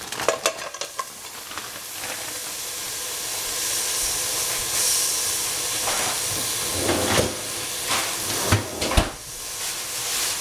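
A hot cooking pot hissing and sizzling, the hiss building over the first few seconds and holding steady, with a few sharp knocks near the end.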